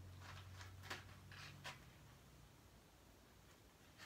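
Near silence: a faint steady room hum that fades out about two seconds in, with a few soft clicks and rustles.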